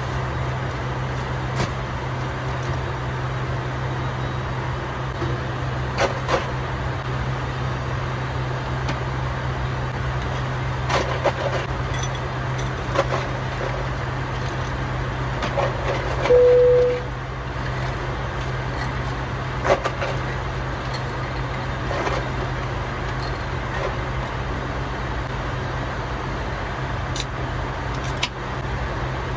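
Steady low hum of a vehicle's interior, with a few light clicks and knocks and one brief tone about halfway through.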